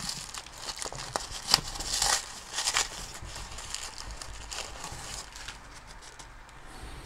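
Paper wrapping crinkling and tearing as it is pulled off a plastic deli cup, with several sharper crackles in the first three seconds and fainter rustling after.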